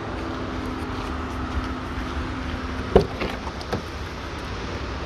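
A Cadillac limousine's rear door latch clicks open with one sharp click about three seconds in, followed by a couple of lighter clicks as the door swings. A steady low rumble runs underneath.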